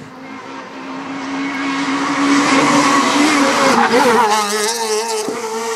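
Rally car's engine at high revs, growing louder as it approaches and passes close by about four seconds in, its pitch dropping as it goes by and then running on steadier as it pulls away.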